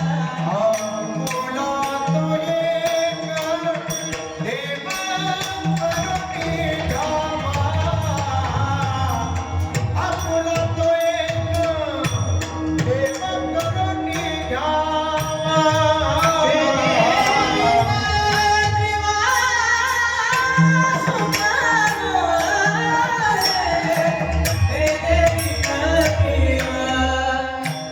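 A Marathi abhang sung in kirtan style: a solo voice with long, gliding ornamented phrases, over a mridang (pakhawaj) drum rhythm and jingling percussion.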